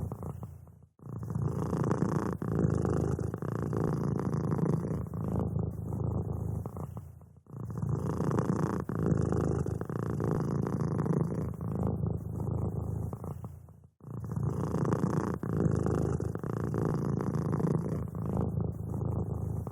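Domestic cat purring continuously, a low rapid buzzing that dips out briefly about every six and a half seconds, about a second in, near seven and a half seconds and near fourteen seconds.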